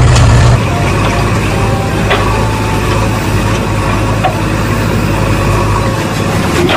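Heavy engine running steadily at a low rumble, an engine sound effect laid over hand-pushed toy vehicles that have no motor of their own.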